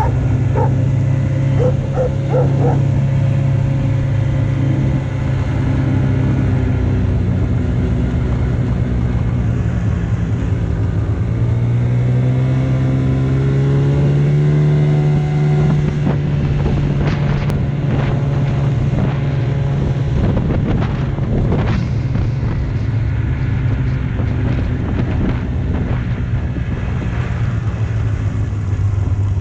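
A vehicle's engine running steadily under way, its pitch rising and falling with speed. A dog barks a few times near the start.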